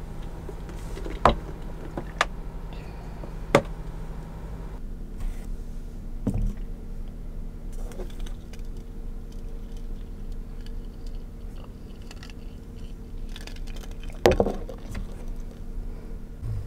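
A few sharp clicks and clinks of a glass and small objects being handled, with a louder knock near the end, over a steady low electrical hum that changes about five seconds in.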